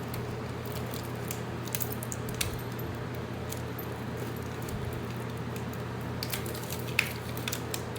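Scattered light clicks and clinks of small metal hardware, nuts and washers being handled and sorted, over a steady low hum.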